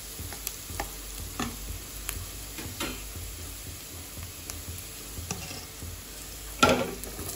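Spiced onion masala sizzling in hot mustard oil in a steel kadhai while a wooden spatula stirs it, with occasional short scrapes. Near the end there is a brief louder clatter and burst of sizzling as chopped fiddlehead fern (lingad) is tipped in from a steel plate.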